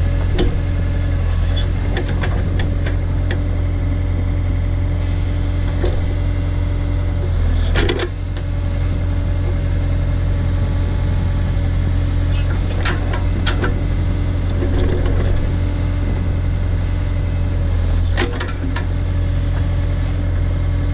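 Case/Davis D100 backhoe's engine running steadily as the bucket works, with scattered short metallic knocks and clanks, the loudest about 8 and 18 seconds in.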